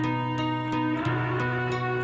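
Background music: guitar over a steady bass line, with a light ticking beat.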